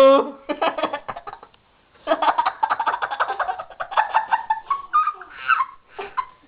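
Human voices making goofy, rapid, chattering nonsense noises: a short run, a brief pause, then a longer run of quick stuttering sounds.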